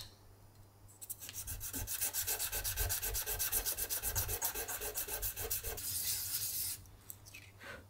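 Silver bezel wire being sanded flat on sandpaper in quick, rhythmic back-and-forth strokes, levelling its top edge. Starts about a second in and stops shortly before the end.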